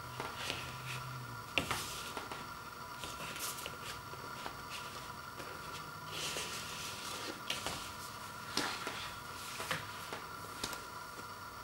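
Cardboard gatefold record jacket and paper inner sleeve being handled: light taps and clicks with brief rustles of paper sliding against card, the longest rustle about six seconds in as the inner sleeve slides out.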